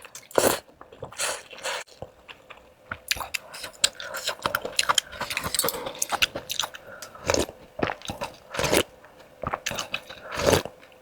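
Close-miked eating of pickled-pepper rice noodles: repeated biting and chewing with sharp crunchy crackles, from the peanuts and tofu-skin topping.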